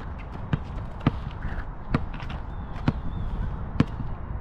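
A basketball bouncing on an outdoor hard court: five sharp smacks, unevenly spaced about a second apart.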